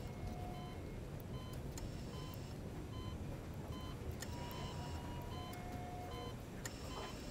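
Electronic beeps and alert tones of several different pitches from hospital monitoring equipment, one of them repeating about once a second and a couple held longer, over a low steady room rumble.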